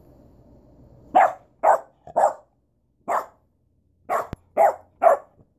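Bernese mountain dog puppy barking: seven short barks starting about a second in, three in quick succession, then a pause, then four more.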